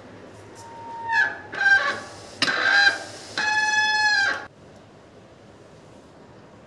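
Bicycle disc brake squealing as the spinning front wheel is braked: a few short squeals, then a longer steady one of about a second that stops abruptly. It is the brake squeak that is to be fixed.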